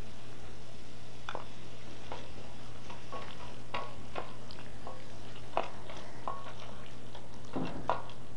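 A spoon clicking and scraping against a metal pan at uneven intervals as tomato sauce is stirred into a simmering curry, over a steady low hum.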